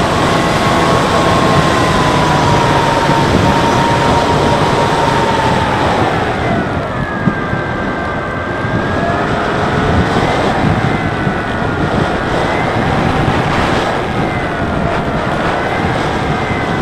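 Electric motor and pusher propeller of a Bixler 3 foam RC plane whining in flight over a steady rush of wind. The motor's pitch sinks about six seconds in as the throttle is eased back for the landing approach, then rises and falls with small throttle changes.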